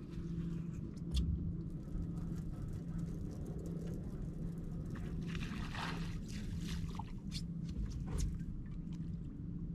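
Fishing reel and rod handling noises as a hooked fish is reeled in: scattered clicks, and a brief whirring rush about five to six seconds in, over a steady low hum.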